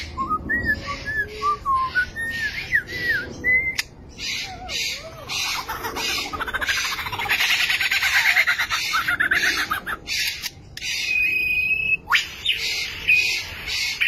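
Lyrebird singing a varied mimicry medley: several short whistled notes sliding up and down, then a long run of harsh rattling and clicking calls, and a brief steady whistle near the end.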